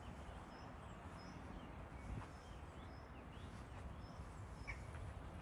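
Faint countryside ambience: small birds chirping in short, high, repeated notes, about one or two a second, over a low steady rumble.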